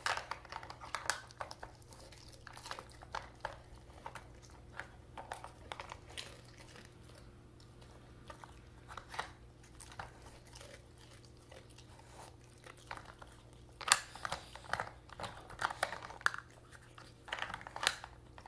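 A German Shepherd working a plastic treat-puzzle board with its nose: scattered clicks and rattles as the plastic covers and pegs are pushed and tipped, mixed with the dog chewing the treats it finds. The clatter gets busier about fourteen seconds in and again near the end, over a faint steady hum.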